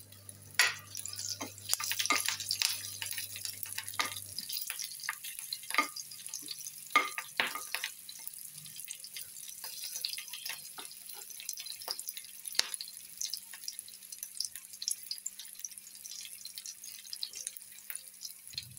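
Green chillies, curry leaves and mustard seeds frying in hot oil in an aluminium pan: a steady sizzle with irregular sharp crackles and pops, busier in the first half.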